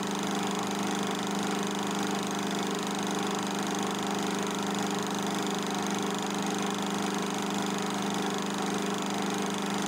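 Film projector running: a steady mechanical hum with a fast, even flutter underneath.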